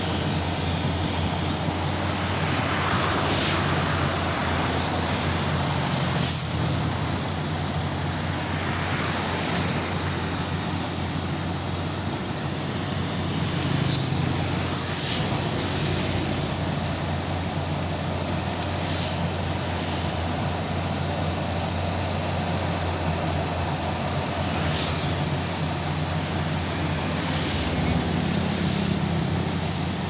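Rice combine harvester's engine and threshing machinery running steadily as it cuts standing ripe paddy, with a few brief clicks.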